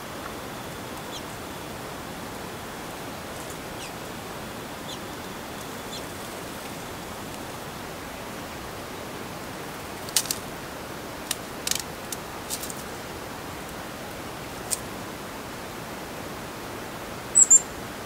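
Steady garden hiss with a few faint, short bird calls in the first seconds. About ten seconds in comes a run of sharp clicks, and near the end two brief, very high chirps from a small songbird such as the chickadee at the bath.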